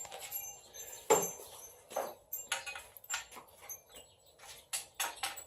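Irregular clicks and knocks of hand tools and metal parts on an engine under assembly, with a sharper knock about a second in.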